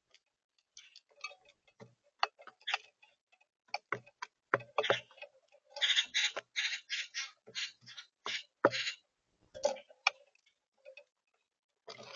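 A run of sharp, irregular clicks and taps that comes closer together about six to seven seconds in.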